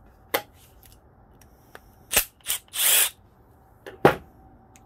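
Tools and carburetor parts being handled on a wooden workbench: a few separate sharp knocks and clicks, a short scrape about three seconds in, and the loudest knock about four seconds in.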